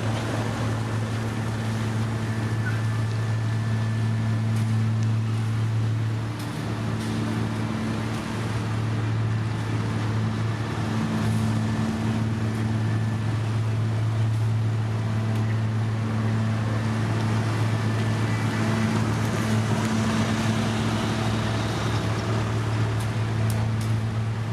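Diesel engine of heavy road-paving machinery running steadily at a constant speed, a deep even hum with a fainter higher tone above it.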